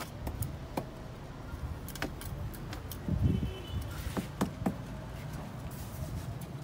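Small metal trowel scraping and knocking in potting soil in a raised planter, loosening the soil: an irregular scatter of clinks, scrapes and dull thumps, busiest about three seconds in.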